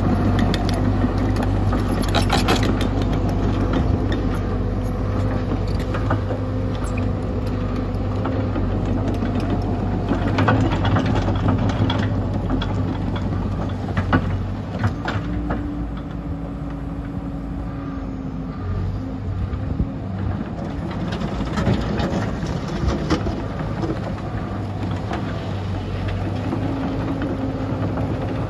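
Caterpillar 314D LCR excavator's diesel engine running steadily under hydraulic work, its note shifting now and then, with scattered metal clanks as the machine moves.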